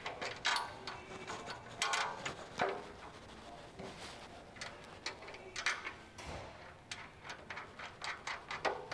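Irregular metal clicks and clinks as 1/2-inch bolts, washers and nuts are fitted by hand through a steel plow shoe bracket on the back of a snowplow blade.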